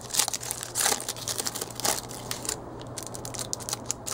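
Foil trading-card pack crinkling as it is ripped open, in a few sharp crackly bursts in the first two seconds, then quieter rustling as the cards are slid out.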